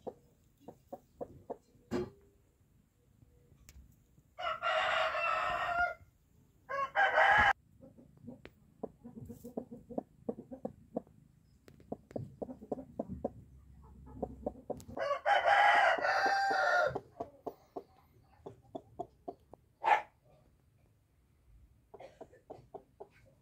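A rooster crows twice, once about five seconds in and again around fifteen seconds in, each a long call. A single short cluck comes near twenty seconds. Between the calls there is soft rustling and scratching in straw.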